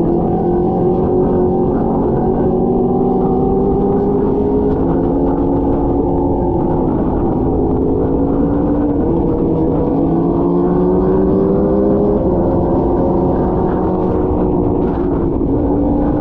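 Sport bike engine heard from the rider's seat while cruising, its pitch climbing slowly and dipping about six seconds in and again about twelve seconds in as the revs change, over a low wind rumble.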